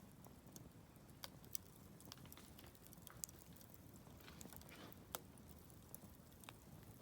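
Wood campfire crackling: scattered sharp pops and snaps, the loudest about one and a half, three and five seconds in, over a faint low rumble.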